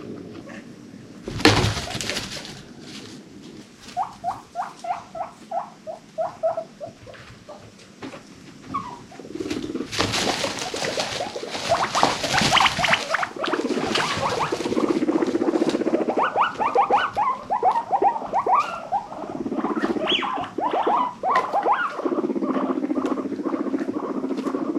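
Guinea pigs squeaking in runs of short repeated calls, with stretches of rustling and a sudden loud noise about a second and a half in.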